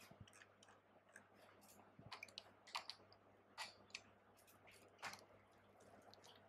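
Near silence with a few faint, scattered clicks, the clearest about two, three, three and a half and five seconds in.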